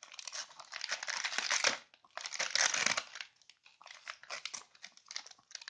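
Gift wrapping paper crinkling and tearing as a Chihuahua and a person's hands pull at it: two dense bursts of about a second each, then sparser, fainter crackles in the second half.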